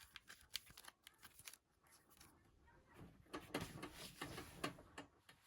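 Faint handling noises from working on a tablet: a few small clicks, then a couple of seconds of light rubbing and scraping in the second half.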